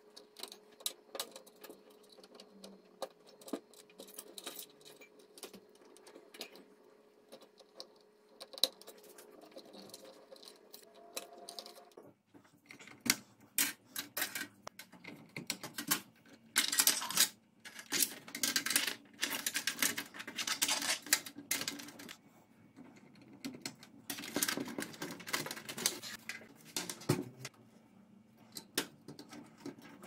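Clicks, taps and rustling of computer cables and plastic connectors being handled, routed and plugged in against a metal PC case. The handling is sparse at first and gets busier and louder in the second half.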